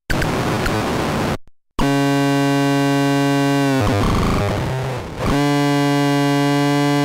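Solar-powered DIY noise synth (the Sun Swallower) being played: a short burst of harsh noise that cuts off abruptly, then a loud, steady buzzing drone with many overtones from about two seconds in. The drone breaks into rough noise for over a second around the four-second mark, then comes back.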